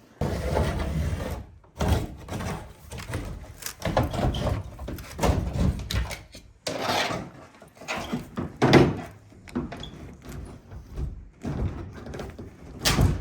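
Irregular knocks, thunks and scraping as a small sailboat's deck is pried and worked loose from its hull where it is still stuck.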